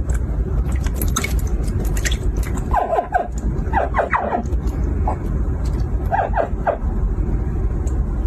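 Hatchling crocodiles chirping: short, high calls that bend in pitch, coming in small clusters several times, over a steady low hum.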